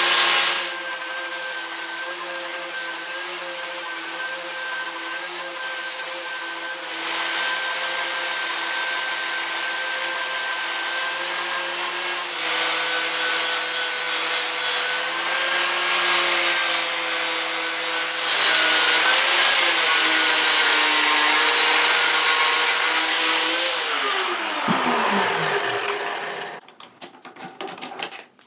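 Angle grinder with a plastic paint-removal fleece disc running steadily, stripping paint off motorcycle fork legs: a steady motor whine under a hiss that swells each time the disc is pressed against the metal. About 24 seconds in it is switched off and winds down, falling in pitch, followed by a few light clicks and knocks as it is handled.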